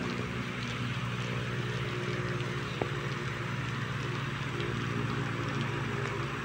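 Engine running steadily, a low even hum with a hiss over it.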